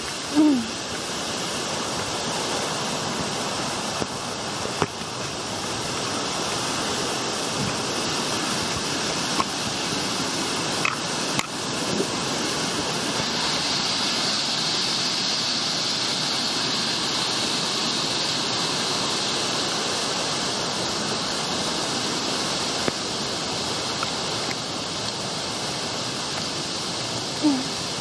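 Steady rush of a waterfall and the cascading river below it, a continuous hiss of falling water. The hiss turns brighter through the middle. A few faint clicks sit over it.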